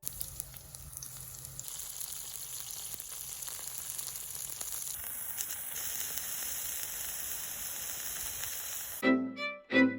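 Meat sizzling in a hot pan, a steady frying hiss with fine crackles; it gives way to music about nine seconds in.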